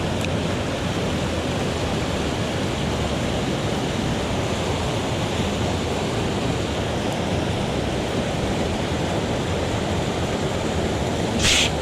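Steady rush of a mountain stream running high after rain. A brief sharp hiss cuts in near the end.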